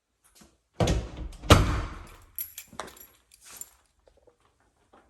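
A closet door being pushed shut, with two heavy knocks, the second one the louder, followed by a few lighter clicks.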